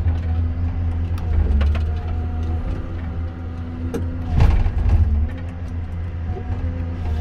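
Forestry harvester's diesel engine running steadily with a hydraulic whine, several clicks and knocks, and a louder cracking burst of the harvester head at work about four seconds in.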